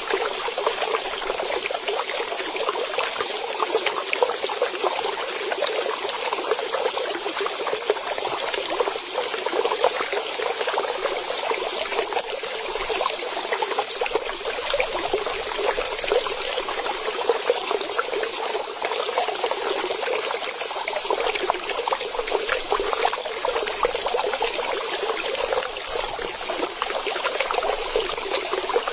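Steady trickling, splashing running water, like a small stream or water feature.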